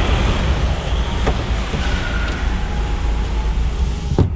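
Steady low rumble of a DAF truck's diesel engine idling, heard from inside the cab with the window open. There are a few light clicks about a second in and a sharper click near the end.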